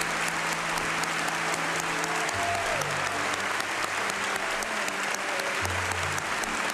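A large audience applauding steadily in a standing ovation, with music of long held low notes playing under the clapping.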